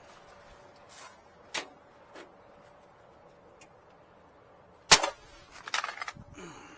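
A few light clicks, then one loud, sharp click about five seconds in, followed by a brief metallic clatter, over a faint steady hum.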